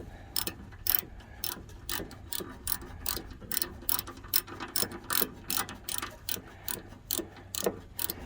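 Hand socket ratchet clicking in steady, even strokes, about two clicks a second, as a bolt is run in on the snowblower.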